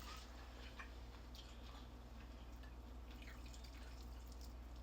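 Faint, scattered wet clicks and smacks of someone eating fried chicken, over a low steady hum.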